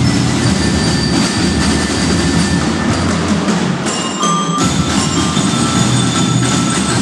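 Drum and lyre corps playing: a dense, steady beat of marching snare and bass drums with bell lyres ringing out notes over it, echoing in a large covered court. About four seconds in the drums thin out for a moment and a few lyre notes stand out.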